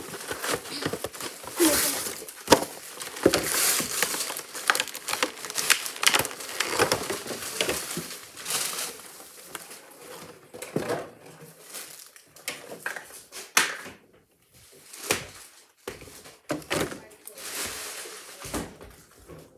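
Pokémon card packaging, plastic wrapping and cardboard, crinkling and rustling in irregular bursts as it is handled and opened, with sharp handling clicks and knocks close by.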